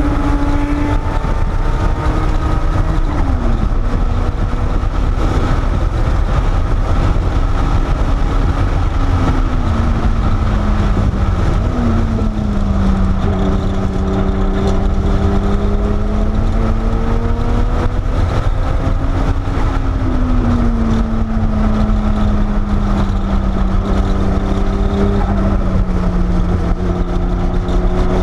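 Porsche 930 Turbo's air-cooled, turbocharged flat-six engine heard from inside the cabin while lapping a track. Its pitch rises slowly as the car accelerates and drops off several times as it slows, over a steady low rumble.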